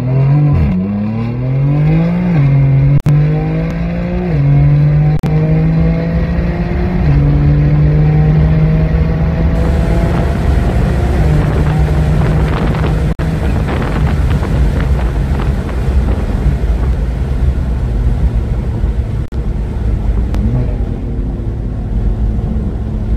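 A 780-whp tuned BMW M4's twin-turbo inline-six is run at full throttle from a roll up to about 150 mph. Its note climbs through several quick upshifts, each a sharp drop in pitch, heard from inside the cabin. In the second half the car lifts off and slows, leaving a steadier engine drone under heavy wind and road noise.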